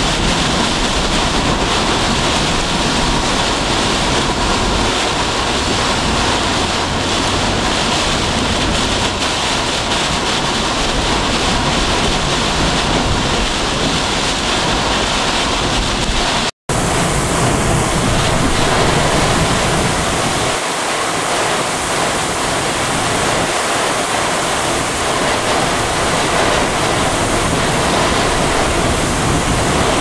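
Near-hurricane-force straight-line wind and driving rain buffeting a vehicle on the road: a loud, unbroken rush of noise. The sound cuts out for an instant a little past halfway, and the deep rumble underneath eases a few seconds later.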